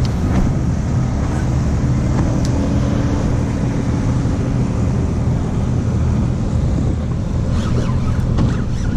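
A boat engine running steadily with a deep, even hum, mixed with wind rumble on the microphone.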